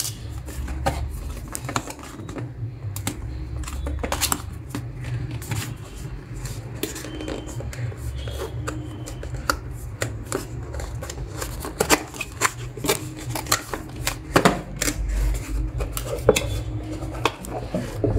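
A cardboard product box being handled and opened: the inner box slid out of its printed sleeve and the lid lifted, with irregular scraping, rustling, clicks and knocks of card, over a low steady hum.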